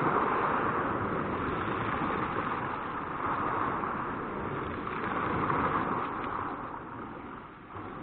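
Small sea waves breaking on a pebble shore and washing over the stones, in swells: loudest at the start, surging again twice, then easing off near the end.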